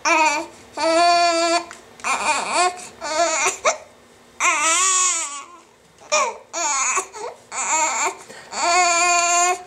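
Newborn baby fussing: a string of short, whiny cries, each under a second, with brief pauses between them.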